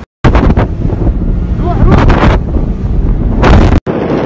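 Wind buffeting a phone microphone on a fast-moving motorboat, with a heavy rumble of engine and water. It cuts off abruptly near the end and gives way to a steadier rushing hiss.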